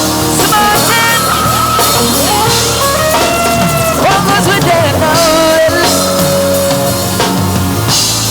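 Live band playing an instrumental passage: a melodic lead line with bends and slides over drums and bass.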